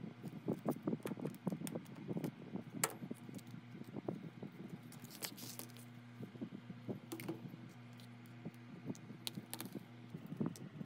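Quick light clicks and taps of small hard parts and tools being handled, as in phone repair work. A few sharper clicks stand out, about three, five and nine seconds in, over a steady low hum.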